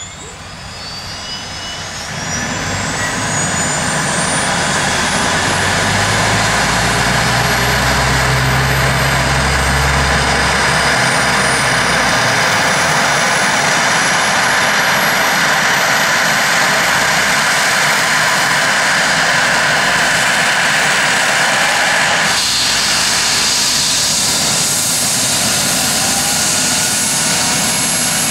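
Airbus H135's twin turboshaft engines and main rotor running up on the ground, with a whine that rises in pitch and grows louder over the first few seconds. It then holds loud and steady, and turns brighter and hissier about 22 seconds in.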